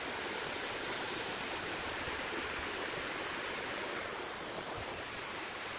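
Steady rush of flowing water, an even, unbroken noise like a stream running over rocks.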